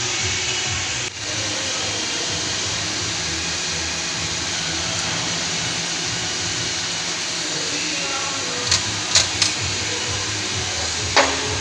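Steady hissing background noise of a workshop, with a few light metal clinks near the end as steel mould parts are handled, the last one ringing briefly.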